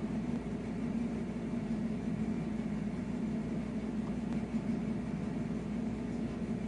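Steady low mechanical room hum, unchanging, with no other distinct sound.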